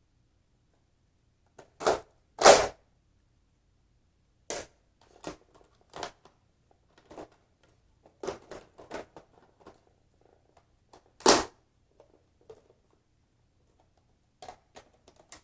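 Irregular plastic clicks, snaps and knocks from a Nerf Elite Strife blaster being handled as its attachments are fitted on, with two louder sharp snaps about two and a half seconds in and about eleven seconds in.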